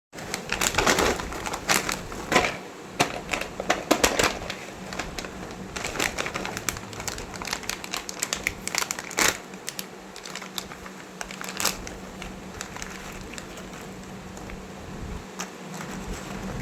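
Crinkling and crackling of packaging being handled, a string of sharp crackles and clicks that thins out after about twelve seconds, over a steady low hum.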